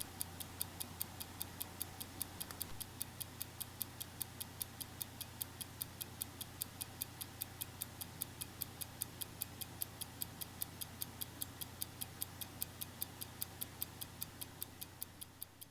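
Restored 1924 Hamilton 912 pocket watch ticking steadily, about five ticks a second, its freshly serviced movement running well. A faint steady low hum lies underneath, and the sound fades out near the end.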